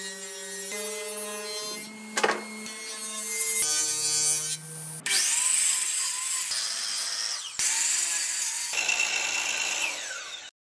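Power saws cutting plywood in short edited clips: first the steady whine of a running table saw, then from about five seconds in a DeWalt sliding miter saw spinning and cutting through a plywood board. The sound cuts off abruptly just before the end.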